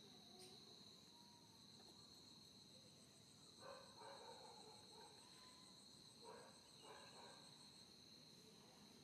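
Faint steady high-pitched insect chorus with a fast pulsing trill above it. A few faint short calls come in about four seconds in and again around six and a half seconds.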